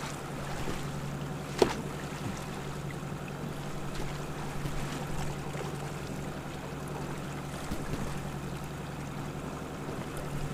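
Boat motor running steadily at trolling speed, an even hum over wind and water noise. A single sharp knock about one and a half seconds in.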